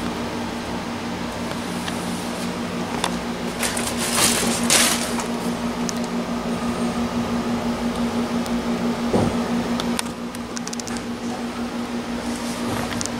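A steady low hum, with brief rustling noise about four and five seconds in.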